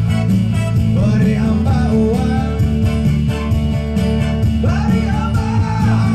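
Live band music: acoustic guitar and keyboard playing a song while a man sings into a microphone.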